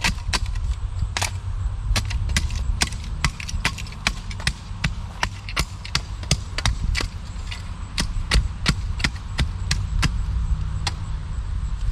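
A rapid, irregular series of sharp knocks and clicks, about two or three a second, over a steady low rumble.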